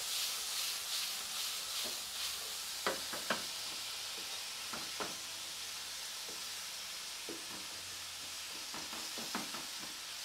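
Pineapple chunks, carrot and garlic stir-frying in oil in a nonstick frying pan: a steady sizzle, with a wooden spatula knocking and scraping against the pan now and then.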